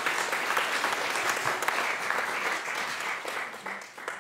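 Audience applauding, a dense patter of many hands clapping in a hall, which thins out and fades near the end.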